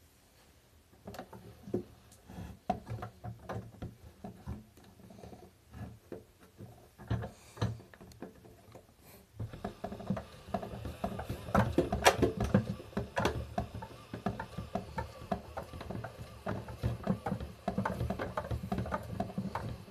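Miele front-loading washing machine drum turning on a drum-cleaning cycle, water splashing and pattering inside with irregular knocks. It starts sparse and becomes much busier and louder about halfway through.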